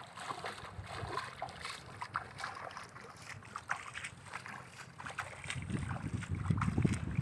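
Wind gusting on the microphone at the seaside, with many small scattered clicks and splashes of water; the wind rumble grows stronger near the end.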